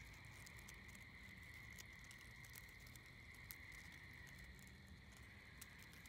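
Near silence: faint scattered ticks and rustles of a periodical cicada nymph crawling over dry leaf litter, over a steady faint high-pitched hiss.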